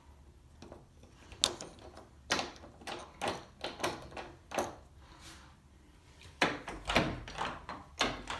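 Door knob with a stripped lock being turned and rattled, its latch and lock clicking in quick clusters with short pauses between.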